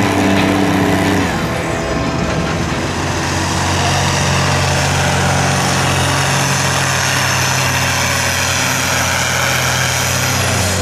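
Deutz D 13006 tractor's diesel engine running steadily under heavy load as it pulls a weighted sled along the track, with a faint high whine over the low engine note.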